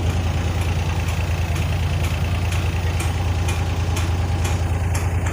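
Suzuki K6A three-cylinder engine idling steadily while it warms up, now running smoothly with an improvised coolant temperature sensor fitted in place of the faulty one. A faint high tick repeats about twice a second over the idle.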